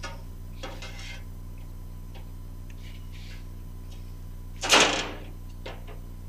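A piece of sheet steel being handled and shifted on a steel floor pan: a few light scuffs and clicks, then one loud, brief metallic scrape about four and a half seconds in.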